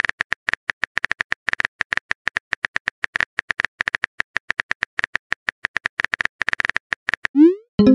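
Phone-keyboard typing clicks from a texting-app sound effect, a quick uneven run of short taps about six a second as a message is typed. Near the end a short rising whoosh marks the message being sent.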